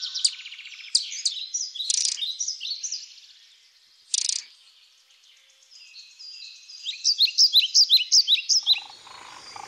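Small birds chirping and trilling in quick, high notes, with a run of about six loud, falling chirps near the end.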